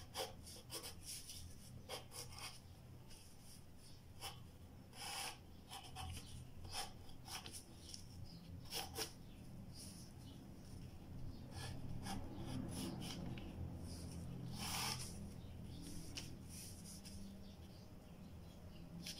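Graphite pencil scratching on paper while sketching freehand, in a string of short, irregular strokes with a few longer ones.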